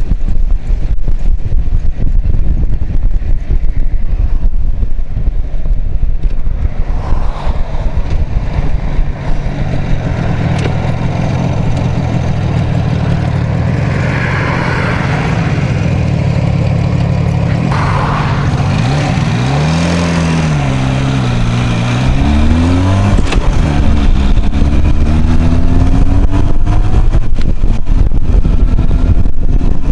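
IZh Jupiter 5 motorcycle's two-stroke twin engine running under way, at first largely buried under wind rush on the microphone. After slowing, the engine note steadies, then its revs rise and fall through gear changes and climb as the bike accelerates near the end.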